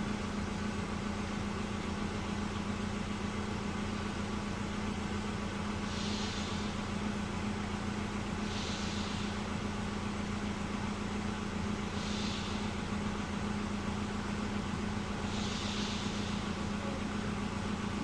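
Steady mechanical hum with a low drone, with four soft short hisses spaced a few seconds apart.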